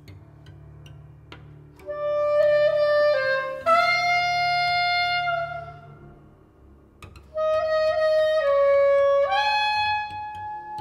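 A reed woodwind plays two phrases of long held notes, each moving between a few pitches, the second phrase starting about seven seconds in. A few light taps sound before the first phrase.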